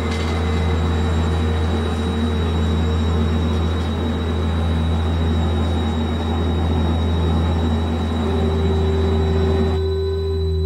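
Soundtrack drone over the credits: a steady low hum with a hiss over it and a few held tones. One tone steps lower about eight seconds in, and the hiss drops away near the end, leaving the held tones.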